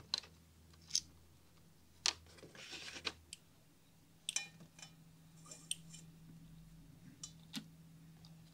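Hands twisting 20 AWG red-and-black filament wire into a pair at a tube socket: scattered small sharp clicks and short rustles of the wire and its insulation.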